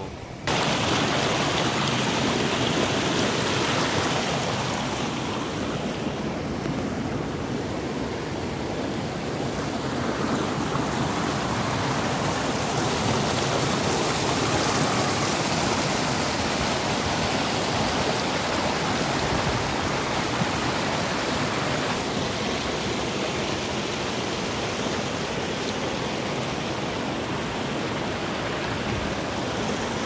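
Water rushing over rocks in a fast-flowing stream: a steady, even rush that starts abruptly about half a second in.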